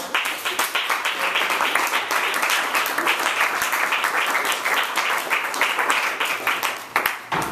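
Audience applauding, many hands clapping steadily for about seven seconds, then stopping fairly suddenly near the end.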